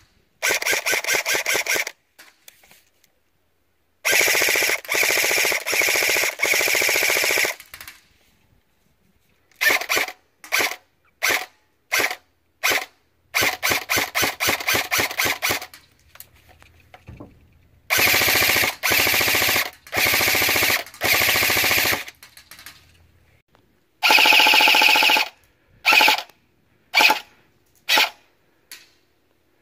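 Airsoft M4-style rifle firing rapid full-auto bursts of one to four seconds each, with strings of separate single shots between the bursts.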